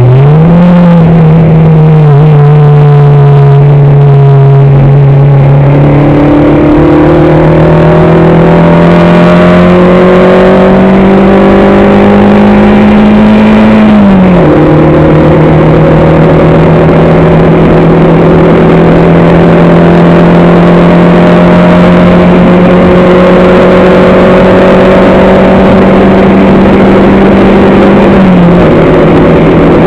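Engine of a competition car heard on board, loud and close. Its note climbs slowly as it pulls, drops sharply about halfway through at an upshift, holds fairly steady, then drops again near the end.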